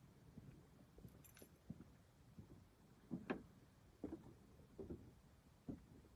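Faint handling noise: scattered light knocks and taps, the loudest about three seconds in.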